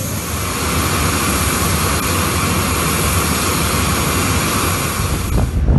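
Jet aircraft engine running steadily on the ramp, a loud rushing noise with a whine over it; the noise drops away near the end.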